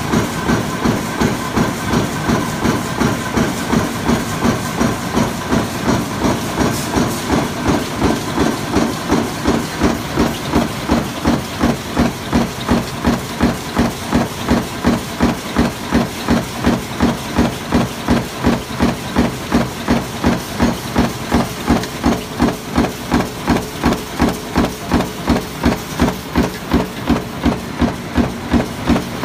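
Sheet-metal stamping press running continuously, with a regular rhythm of strokes at about two a second over a steady hiss.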